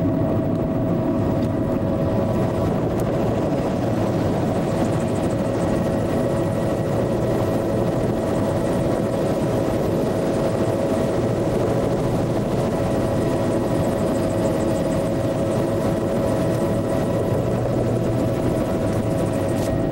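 Steady drone of the survey aircraft heard from aboard: a constant hum of a few fixed pitches over engine and rushing air noise, unchanging throughout.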